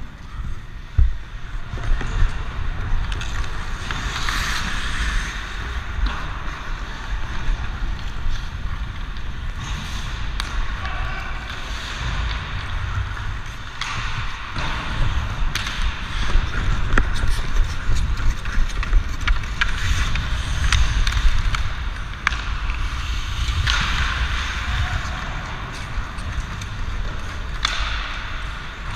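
Hockey skate blades scraping and carving on rink ice in swelling strokes, over a steady rumble of wind on a helmet-mounted camera's microphone, with scattered sharp clacks of sticks and puck.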